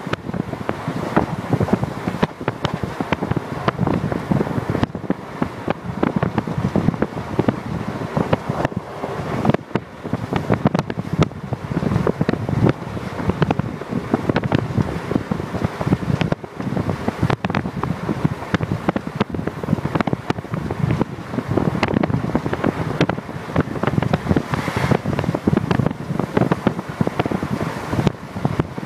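Wind buffeting the microphone at the window of a moving train, over the train's running rumble. It is a continuous gusty rush with rapid crackle.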